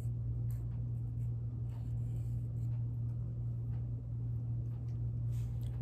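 A nail file scratching on fingernails in faint short strokes, some in quick pairs, over a steady low hum.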